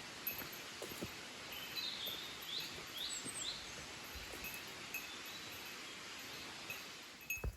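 A bird calls a quick series of four short rising notes over a steady outdoor background hiss, with a small bell tinkling faintly near the end.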